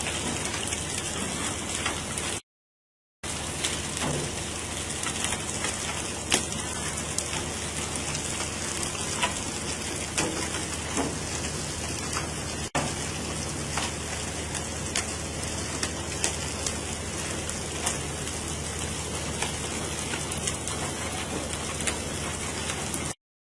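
Steady hiss of water spraying and splashing along the hull of a pole-and-line tuna boat, with scattered light taps. The sound cuts out briefly twice, once near the start and once near the end.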